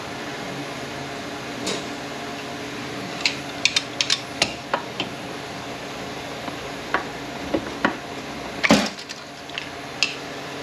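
Pliers and a steel accumulator piston clinking and tapping against the aluminium case of a Ford 4F50N automatic transmission as the piston is worked out of its bore: scattered sharp metal clicks, with a louder clank about nine seconds in, over a steady background hum.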